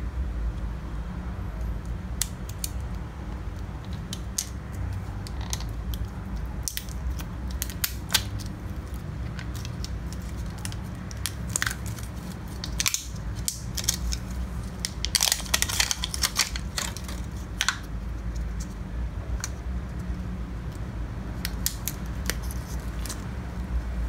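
Scissors snipping and plastic shrink wrap crackling and tearing as it is cut and peeled off an 18650 lithium-ion battery pack: irregular sharp clicks and crinkles, densest about two-thirds of the way through, over a steady low hum.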